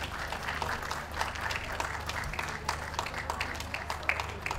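Spectators applauding, scattered hand claps throughout, over a steady low hum.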